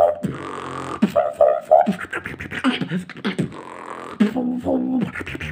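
Solo beatboxing: a held hissing buzz for about the first second, then fast mouth-made kicks, snares and clicks, with short pitched vocal notes over the beat around four to five seconds in.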